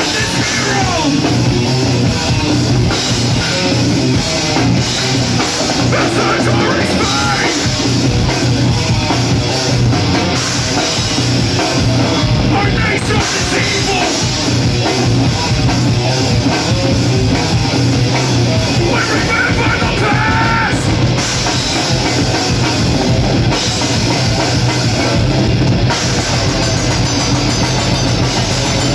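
Metal band playing live: distorted electric guitars and a drum kit, loud and continuous, with a vocalist on the mic.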